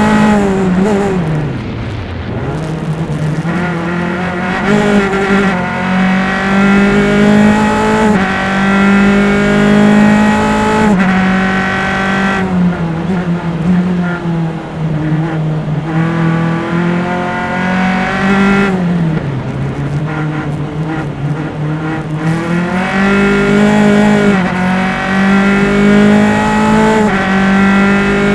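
Open-wheel race car's engine, picked up by microphones on the engine, at racing speed: the revs drop sharply under braking and downshifts about a second in, then climb through several upshifts, drop again about two-thirds of the way through, and climb through the gears once more.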